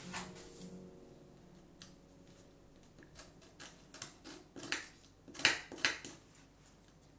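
A series of short, sharp, irregular clicks and taps, like kitchen utensils knocking on a bowl or counter during pastry-cream preparation. They bunch in the second half, with the loudest a little after the middle.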